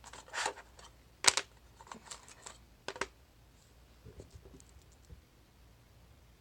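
Small clicks, scrapes and clatters of a cam lock and lock-picking tools being handled at close range, in a loose run of separate sharp sounds; the sharpest click comes about a second and a half in, and a few softer knocks follow near the end.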